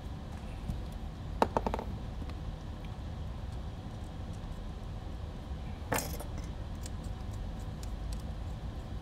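Small metal tools and hardware clinking and tapping as a hex driver and screws work against a carbon-fibre drone frame. The louder clinks come about a second and a half in and again about six seconds in, over a steady low hum.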